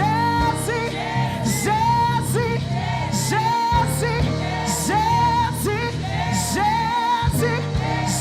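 Church praise music: singing over a band with a steady bass line and a regular beat.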